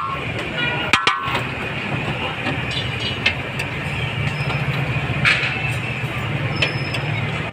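Busy street noise: a steady hum of traffic, with a few short metallic clinks.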